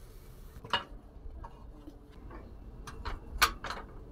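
A few light, irregular knocks and taps of a cooking utensil against a pot while cooked ugali is handled. The loudest knock comes about three and a half seconds in.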